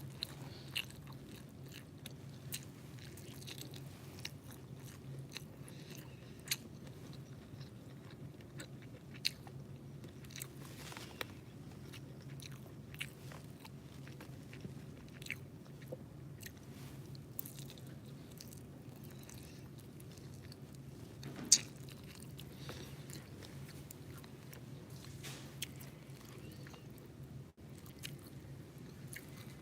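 Close-up mouth sounds of a person chewing and eating fried eggs: scattered small smacks and clicks, with one sharper click about two-thirds of the way through, over a steady low hum.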